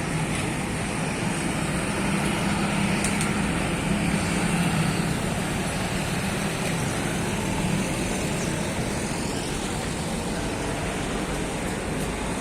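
Street traffic: motor vehicles passing, with a low engine hum that swells and then fades in the middle.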